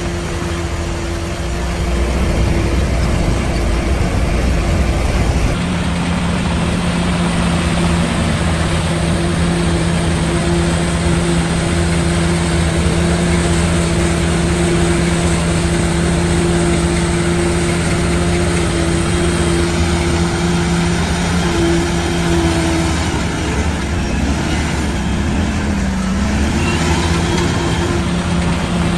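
Heavy construction machine's diesel engine running steadily. The engine note shifts a few seconds in, and near the end it dips briefly in pitch before coming back.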